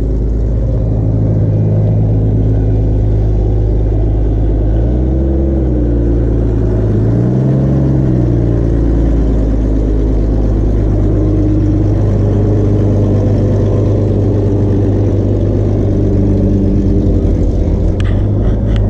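Car engine running steadily, with engine speed rising and falling twice, about five and seven seconds in.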